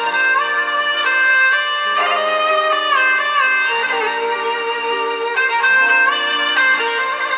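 Instrumental passage of a Turkish love song, led by a violin playing a melody of held notes with slides between them.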